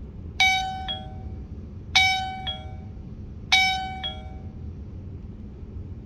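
V5 video doorbell chiming when its button is pressed: a two-note ding-dong played three times, about a second and a half apart.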